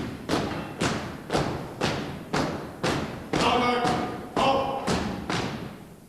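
A steady march beat of heavy thumps, about two a second, each ringing on briefly. A pitched sound rides over a couple of the beats past the middle, and the beat stops just before the end.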